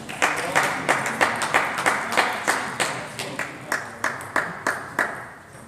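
Hands clapping in a steady rhythm, about three claps a second, fading a little and stopping about five seconds in.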